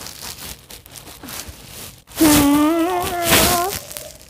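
Faint rustling and handling noise, then about two seconds in a child's loud wordless vocal: one drawn-out, slightly wavering note held for about a second and a half.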